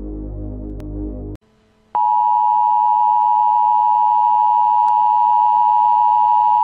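Low droning ambient music cuts off about a second in. After a short gap, a steady single-pitch test tone starts and holds: the reference tone that goes with TV colour bars.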